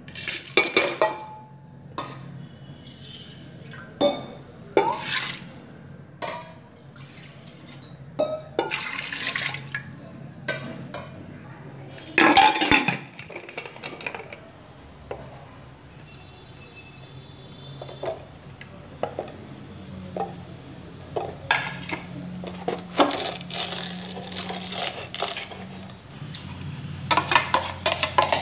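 Metal clanks and scrapes of a spoon and bowl against an aluminium pressure cooker as dal is emptied into it and the lid is fitted, the loudest clatter about halfway through. After that a steady high hiss runs under scattered clicks and grows louder near the end.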